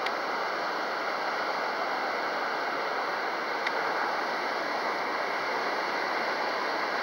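Steady rushing hiss of strong wind over the microphone, with a few faint steady high tones above it.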